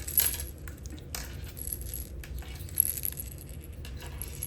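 Small plastic and metal fishing-tackle parts (beads, rattles, float) clicking and clinking as they are handled while a rig is threaded together. There are two sharper clinks, one just after the start and one about three seconds in.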